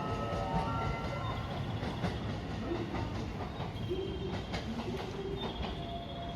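Train running at the platform: a steady low rumble with wheels clicking over rail joints and short pitched tones from the running gear.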